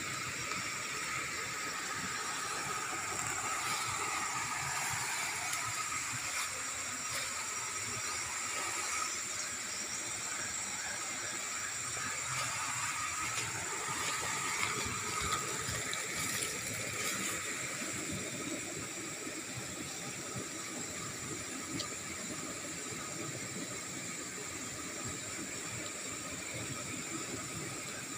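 Steady outdoor ambience: a constant hiss with several high, unbroken tones held throughout.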